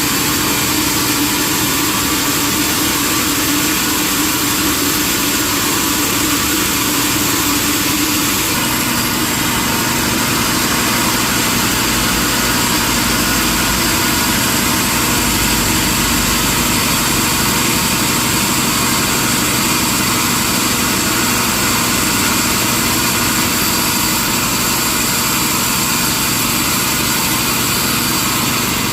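Sawmill machinery running steadily: a continuous mechanical hum with a hiss over it, the hum dropping slightly in pitch about eight seconds in.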